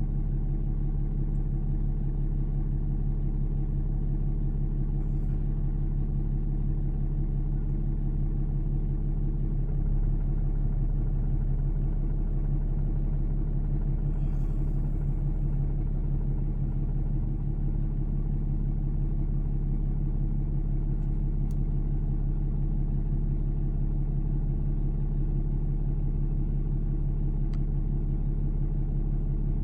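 Steady engine drone of a car heard from inside its cabin, a low, even hum without change in pitch.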